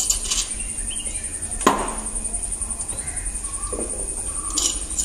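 Small kitchen handling sounds as spice powder is pinched from a stone mortar into a steel soup pot: one sharp click about a third of the way in, and light, high metallic jingling near the start and again near the end.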